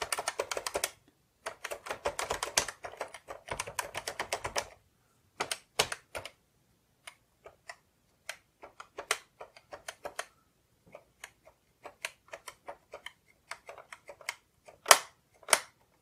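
Keys of a Canon Typestar 10-II electronic typewriter's keyboard clicking under the fingers. Quick runs of presses come in the first five seconds, then single presses spaced out. The freshly refitted keys are being tried for sticking.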